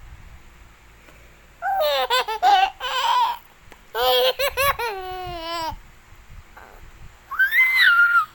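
A toddler laughing in bouts: two runs of quick giggles, the second trailing off in a long falling note, then a high squeal near the end.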